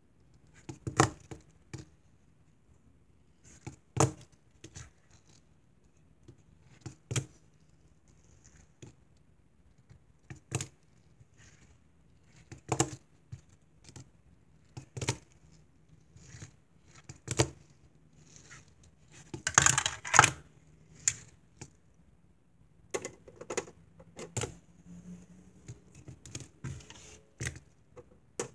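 Tech Deck fingerboard clacking and scraping on a tabletop mat: sharp single clicks every few seconds as the board is popped and landed, with a longer rough scraping stretch about two thirds of the way through.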